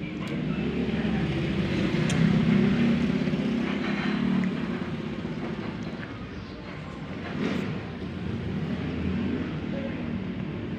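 A motor engine running with a low hum, swelling loudest about two to four seconds in and then easing off, like a vehicle passing.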